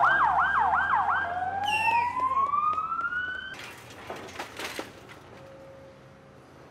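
Ambulance siren sounding four rapid up-and-down sweeps, then one slow rising wail, cut off abruptly about three and a half seconds in. After it, fainter outdoor noise with a few sharp knocks.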